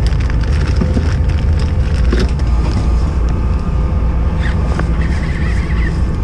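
Fishing boat's engine running with a steady low drone, a few light clicks and knocks over it.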